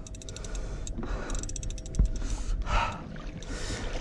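Fishing reel clicking in two quick runs as the hooked tarpon is worked on a bent rod, with a single knock about two seconds in and two heavy breaths near the end, over a steady low rumble of wind and water.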